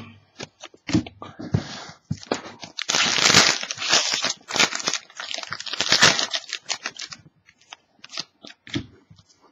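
Foil trading-card pack wrapper being torn open and crinkled, in a long crackling tear about two seconds in and another burst near six seconds, with light clicks and taps of cards being handled between them.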